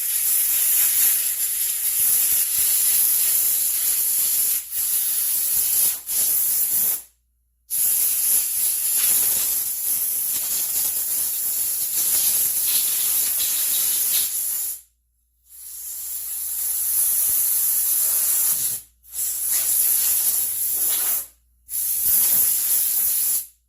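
Pressurised air or spray hissing hard from a nozzle in five long blasts, a few seconds each, cutting off sharply between them, as a chainsaw gas tank is blown and cleaned out.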